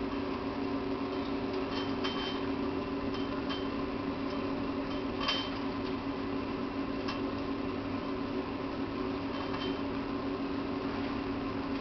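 Pellet stove running during start-up: its fan motor keeps up a steady hum, with a few sharp light clicks now and then, the loudest about five seconds in.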